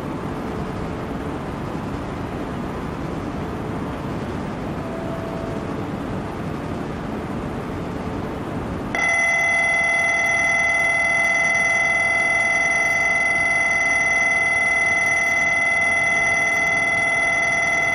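Shinkansen platform departure bell starts ringing about halfway through, a loud, steady, continuous electric ringing that signals the train's imminent departure. Before it there is only steady platform background noise.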